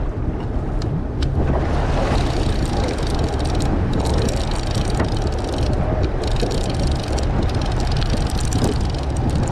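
Steady low rumble with a rushing hiss over it, aboard a deep-sea fishing boat: the boat's engine and wind.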